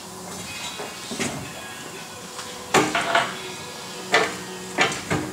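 Sharp metal clanks and knocks from a tire changer as a tire is worked onto a steel wheel rim, in a few quick clusters about three and four to five seconds in.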